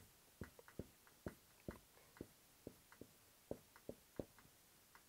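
Faint squeaks and taps of a dry-erase marker on a whiteboard: about a dozen short strokes as lines and letters are drawn.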